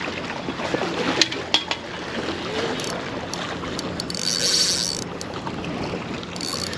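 Steady wind and water noise with scattered clicks. About four seconds in, and again briefly near the end, a fishing reel's drag buzzes as a hooked black drum pulls line.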